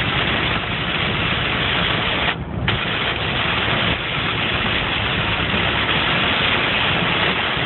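A car's engine running under a steady rushing of water as the car drives through deep floodwater; the hiss of the water dips briefly a little over two seconds in.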